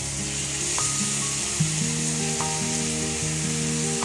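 Diced vegetables and spices sizzling in a non-stick frying pan as washed flattened rice (poha) is tipped in and stirred with a plastic spatula, with a few light scrapes of the spatula. Soft instrumental background music with a slow melody runs underneath.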